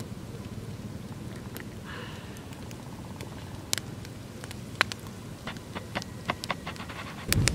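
Wood campfire crackling with scattered sharp pops, more frequent in the second half, over a steady low rumble.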